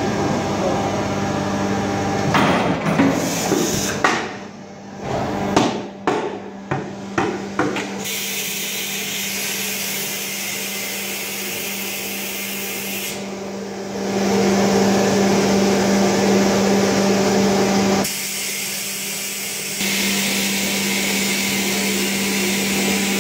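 Industrial blow molding machinery: a steady hum under a run of sharp clanking knocks, followed by steady hissing noise that shifts abruptly in level several times.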